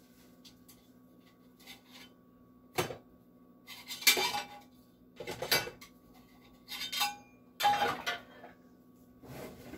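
Metal tortilla baking pans being handled: a sharp knock about three seconds in, then five short bursts of clattering, with a brief ring in a couple of them and the last burst fainter.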